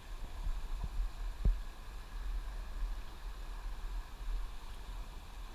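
Steady hiss of river water with a low rumble of wind and handling on the microphone, and a couple of soft thumps about one and one and a half seconds in.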